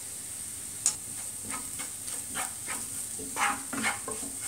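Chopped onions, ginger and green chilli frying in oil in a pan with a steady sizzle, stirred in a series of short scraping strokes as turmeric powder goes in to be sautéed. A light click about a second in.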